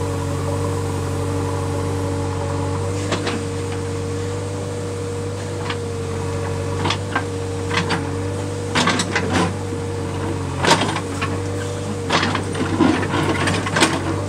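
JCB digger's diesel engine running with a steady hum while its bucket pushes soil and stones down a slope. Sharp knocks and clatter of stones and earth falling and scraping come now and then, growing busier in the second half.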